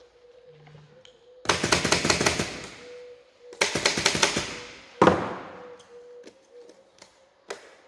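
Pneumatic upholstery staple gun firing two rapid bursts of staples, each about a second long, fastening new webbing to a wooden backrest frame, followed by a single sharp knock and a light click near the end.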